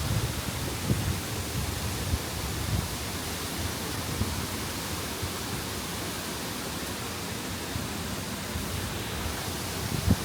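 Steady, even rushing noise, with low rumbling buffets near the start and again just before the end.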